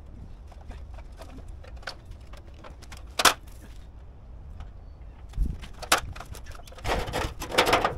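Aluminium stepladder being handled and moved, with metal clanks and knocks that are loudest near the end, and a single sharp knock about three seconds in, over a steady low rumble.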